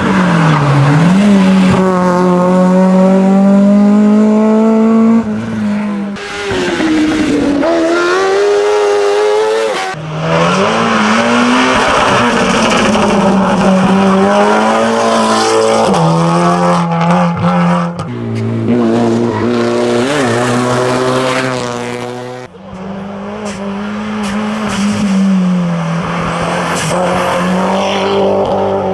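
Hillclimb race car engines running hard at high revs, the pitch dipping and climbing again and again through gear changes and corners. Several passes follow one another with abrupt switches between them.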